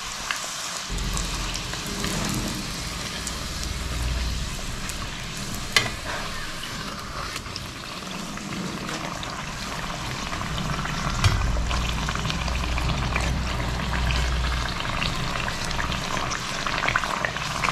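Potato donut deep-frying in hot oil: a steady sizzle and crackle as a slotted skimmer turns and bastes it, with a couple of sharp clicks about six and eleven seconds in.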